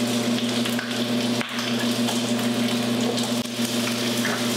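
Bacon sizzling as it fries in its own fat in a pan, a steady crackling hiss over a low steady hum, with a couple of light clicks.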